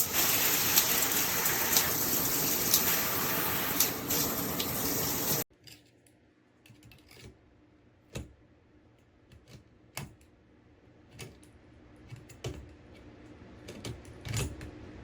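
Water spraying steadily from a handheld shower head, with a few sharp clicks in it, cutting off abruptly about five seconds in. After that come scattered faint clicks and knocks.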